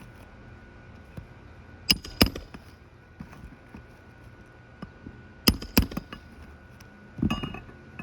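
Roofing nails being driven into an asphalt shingle: two pairs of sharp strikes a few seconds apart, then a duller knock near the end.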